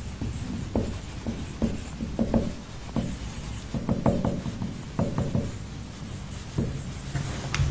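Marker pen writing on a whiteboard: a run of short, irregular scratching strokes and taps as letters are written, over a low steady hum.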